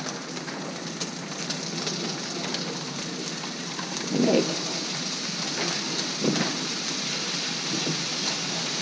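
Rabbit meat and vegetables sizzling steadily in a hot frying pan, with a few light knocks and scrapes of food and utensils at the pan about four and six seconds in.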